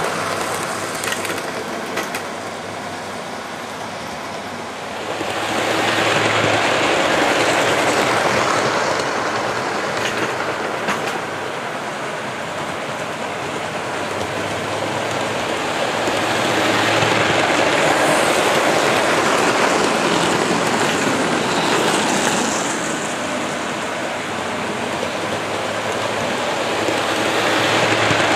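OO gauge model trains running on the track layout: a continuous rattling rumble of wheels and motors on the rails. It swells louder about three times as trains pass close by.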